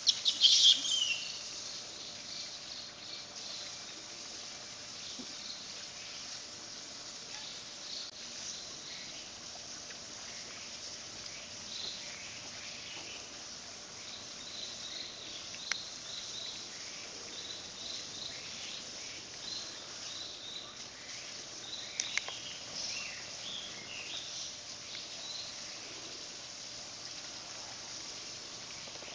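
Steady outdoor background noise with many faint, short, high chirps scattered through it, like small birds calling. About half a second in there is a louder high call that sweeps downward, and a couple of faint clicks come later.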